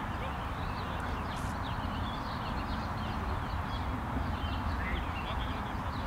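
Songbirds chirping over and over, many short high calls, above a steady background hiss and low rumble.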